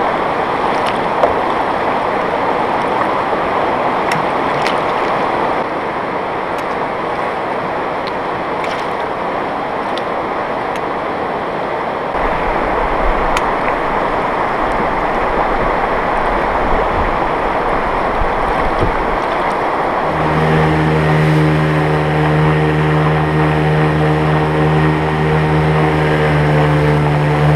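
Fast mountain river rushing steadily. About two-thirds of the way through, a Mercury 25 jet outboard comes in, running at a steady pitch as it drives the boat up the current.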